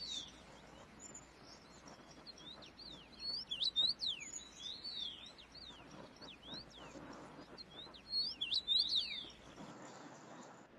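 Small birds chirping: many quick, high chirps in short flurries, busiest around the middle and again near the end, over a faint outdoor background.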